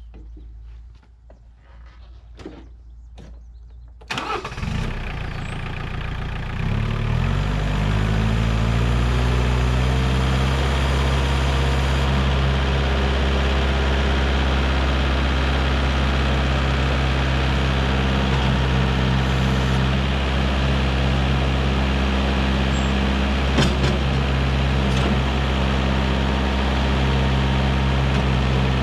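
TYM compact tractor's diesel engine starting with a sudden catch about four seconds in, after a few faint clicks and knocks. It rises in pitch over the next few seconds as it is throttled up to about half throttle (around 2000 rpm), then runs steadily there, with one brief knock about two-thirds of the way through.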